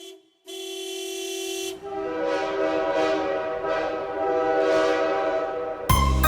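Train horn sounding: one held note, then a longer chord of several notes with a regular swelling hiss beneath it. Music starts suddenly near the end.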